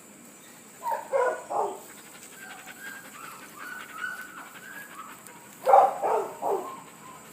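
Dog barking in two quick runs of three barks, about five seconds apart, with a faint high whine between them.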